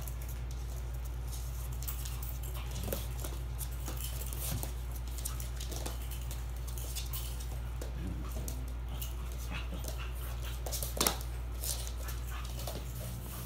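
Two small dogs playing on a wooden floor: scattered clicks and scuffles of paws and claws, with one sharper, louder sound near the end, over a steady low hum.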